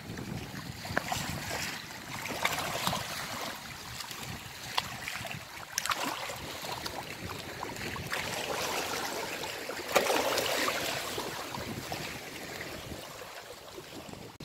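Small waves washing against shoreline rocks, swelling and easing every few seconds, with a few sharp clicks.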